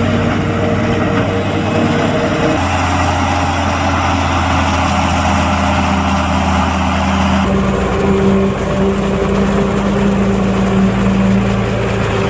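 Claas Jaguar 930 self-propelled forage harvester and a New Holland tractor with forage wagon running steadily under load while chopping maize: heavy diesel engine drone over the rush of the chopper and crop blower. The engine note changes abruptly twice, about two and a half and seven and a half seconds in.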